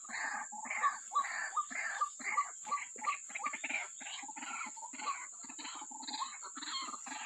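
White-breasted waterhen (ruak-ruak) calling: a rapid, unbroken run of harsh croaking notes, about two to three a second, over a steady high-pitched hiss.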